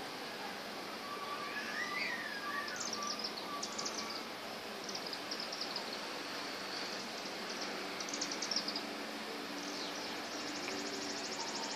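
Repeated bursts of rapid, high-pitched chittering calls from the flock circling overhead, which the uploader takes for bats; their swept-wing shape and calls fit chimney swifts. A lower wavering call sounds during the first few seconds.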